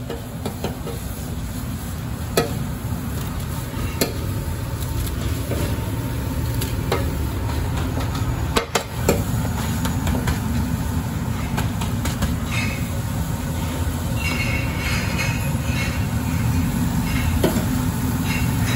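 A steady low rumble with a few sharp clinks of a metal spoon striking a steel griddle, spaced a few seconds apart, as tantuni meat is stirred.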